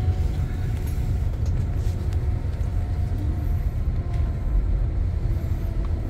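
Steady low rumble of a moving vehicle, heard from inside the cabin while driving along.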